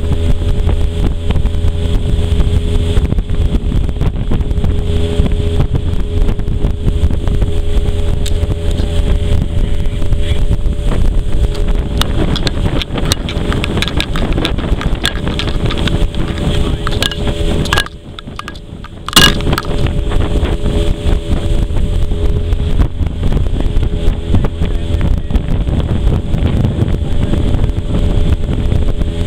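Outboard motor of an aluminium river skiff running steadily at speed, with wind buffeting the microphone. The sound drops away for about a second past the halfway point and comes back with a click.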